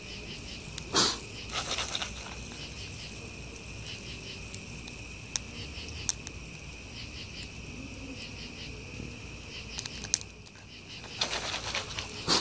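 Crickets chirping in a steady high chorus, with a few sharp crackles from the wood fire and the popcorn pan over it. Near the end there is a burst of rustling.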